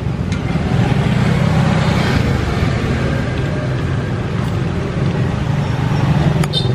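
Refrigeration vacuum pump running steadily with a low drone while it evacuates a refrigerator's sealed system. A brief high chirp comes near the end.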